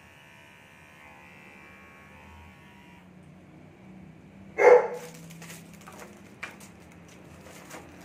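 Rechargeable pet hair trimmer running with a steady electric hum, switched off about three seconds in. A little later a dog gives one loud bark, the loudest sound here, followed by light clicks of plastic trimmer parts being handled in the box.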